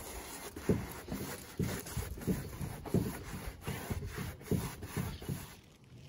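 Wide paintbrush scrubbing paint onto a rough-sawn wooden fence panel, a rasping stroke about twice a second.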